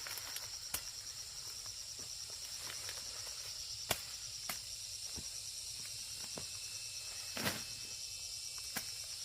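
Insects, likely crickets, trilling steadily at a high pitch, with a few sharp snaps or knocks scattered through, the loudest about four seconds in and again near the end.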